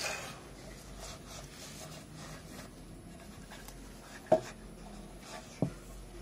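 A metal computer power supply unit being handled over paper: a rustling scrape at the start, faint rubbing, then two sharp knocks, the louder about four seconds in and the other a second later.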